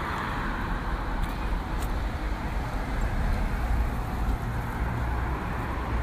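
Steady road-traffic noise: a continuous low rumble with a fainter hiss above it.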